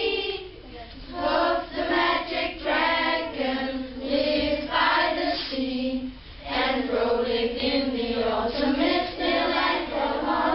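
A class of children singing a song together as a group, with short breaks between lines about half a second in and around six seconds in.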